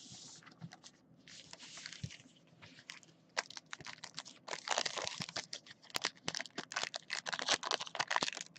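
Plastic trading-card pack wrappers crinkling and tearing as they are opened by hand. It comes in short spells at first, then becomes a dense run of crackling from about three seconds in.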